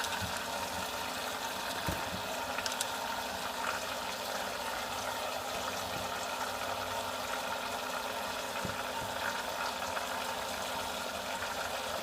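Motorized vortex mixer bottle running steadily, its small motor humming as it swirls liquid, with a few faint clicks.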